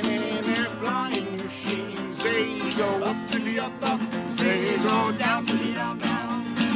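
Two acoustic guitars strummed in a steady rhythm in an instrumental break of a sing-along song, with a wavering melody line with vibrato over the chords.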